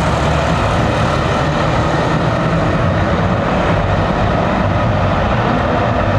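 A heavy vehicle engine running steadily, a low drone with street traffic noise over it.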